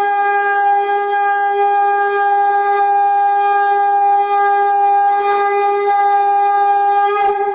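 Shofar sounding one long, steady blast held on a single high note for about seven seconds, breaking off near the end.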